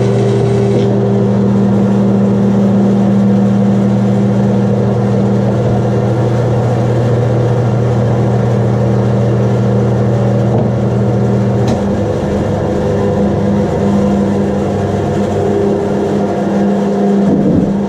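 Rikon bandsaw running steadily with a low hum. For about the first second its blade is still cutting through wood, adding a hiss; after that the saw runs free.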